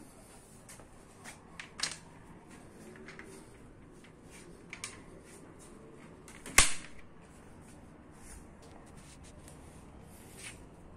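Clicks of a small latch on an aluminium-framed door being worked by hand, with one sharp, loud snap about two-thirds of the way through and a few lighter clicks before and after it.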